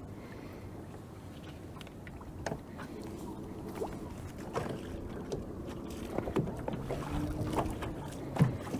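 Small waves lapping against the hull of a small fishing boat. From a few seconds in there are scattered light clicks and knocks as the rod and reel are handled.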